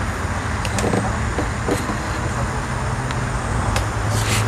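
A hooked crucian carp splashing at the pond surface a few times near the end, over a steady low background rumble like distant road traffic.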